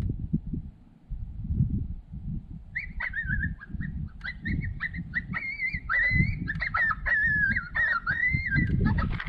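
High, wavering whining calls in short broken phrases, starting about three seconds in, played by an electronic predator caller to lure coyotes. Wind buffets the microphone throughout.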